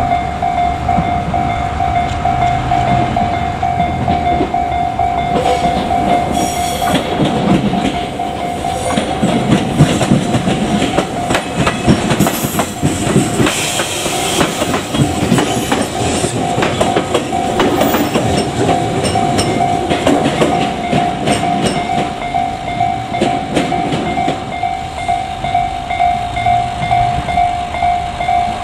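Japanese level-crossing warning bell ringing in a rapid, even pulse while a train passes over the crossing. Its wheels clatter over the rail joints from about eight seconds in, louder in the middle and fading out toward the end, with the bell still ringing.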